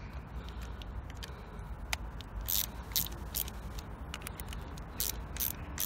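Short scrapes and clicks from a hand tool tightening screws on a starter motor being reassembled, about half a dozen of them, mostly in the second half, over a low steady hum.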